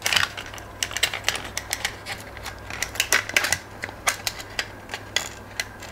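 Irregular sharp clicks and light knocks of a laptop battery pack's plastic casing being pried apart and its cylindrical 3.7 V lithium-ion cells pulled out by hand, over a faint low steady hum.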